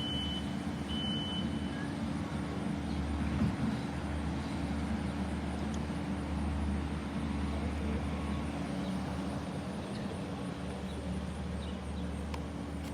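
Steady low engine rumble, like heavy machinery or traffic, running on without change.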